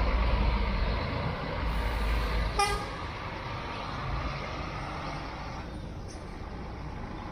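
Intercity coach's diesel engine rumbling as the bus pulls past and away, with one short horn toot about two and a half seconds in; the engine sound then drops to a quieter steady traffic noise.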